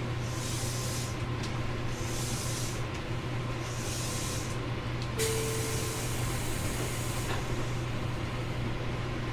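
Inside a JR Kyushu 813 series electric train: a steady low hum with soft hisses repeating every second and a half or so. About five seconds in, a louder burst of air hiss starts suddenly and lasts about two seconds.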